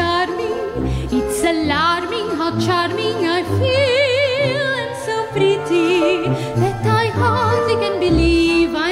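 Female soprano singing a musical-theatre song with wide vibrato, accompanied by a symphonic wind band.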